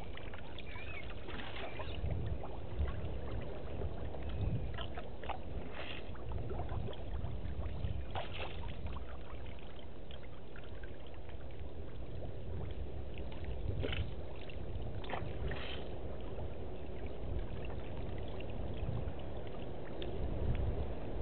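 Water sloshing and splashing as an African elephant standing in a waterhole moves its trunk and legs through the water, with a few short splashes over a steady low rumble.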